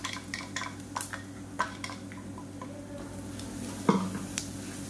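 Ground masala tapped and scraped out of a steel mixer jar into a nonstick kadai, then stirred into the oil with a wooden spatula: scattered clicks and knocks of jar and spatula on the pan, with a louder knock about four seconds in. A steady low hum runs underneath.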